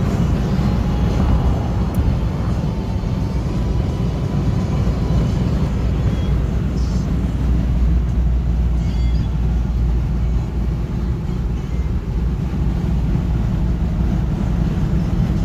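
A 1972 Chevrolet Nova driving at a steady speed: a constant low engine and road rumble that doesn't rise or fall.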